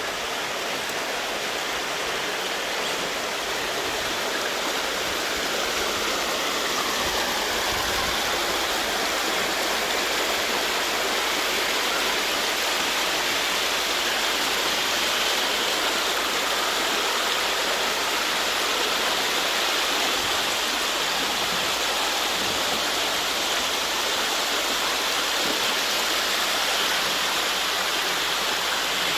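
Shallow rocky creek water rushing steadily over stones and a small waterfall.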